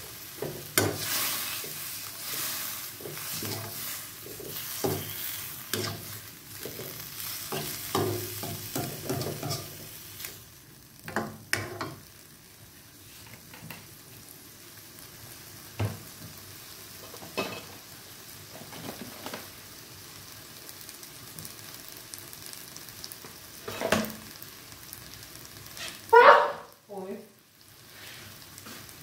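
A slotted spatula stirring and scraping pork in a nonstick wok of bubbling broth, with a light sizzle. The strokes come thick for the first ten seconds or so, then thin to occasional taps. A brief squeaky pitched sound about three seconds before the end is the loudest moment.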